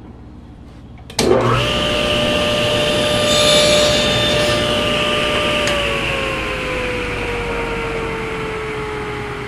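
Table saw switched on about a second in, its blade cutting into a piece of plywood for a second or two. It is then switched off and spins down, its whine falling slowly in pitch.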